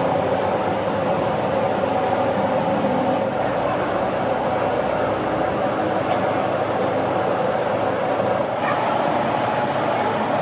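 A machine running steadily, a constant mechanical noise with no strikes or pauses.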